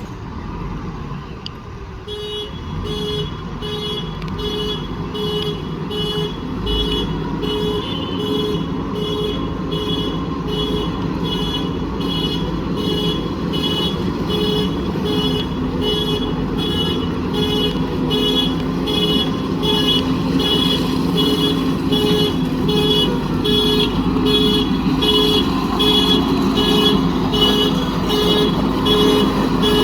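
JCB backhoe loader's diesel engine running under load, with its reversing alarm beeping about four times every three seconds from about two seconds in: the machine is backing up. The engine grows slightly louder toward the end.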